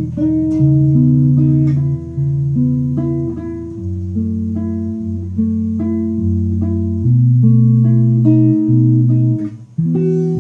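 Five-string electric bass, an RMI Expression bolt-on tuned E to high C, played as a solo instrument with plucked chords and melody notes held about half a second to a second each. Near the end it dips briefly before a new chord sounds.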